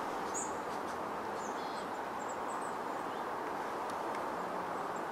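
Steady outdoor background noise with a few brief, high-pitched bird chirps in the first three seconds.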